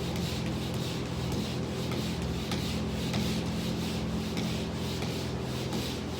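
Pole sander's sandpaper rubbing back and forth across a surface in repeated strokes, about two a second, over a steady low hum.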